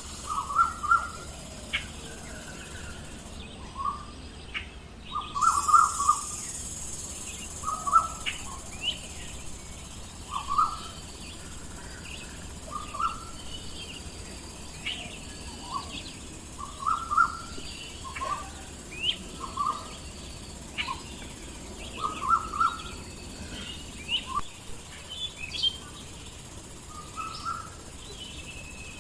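Birds chirping: short, separate calls coming irregularly, often several in quick succession, over a steady outdoor hiss.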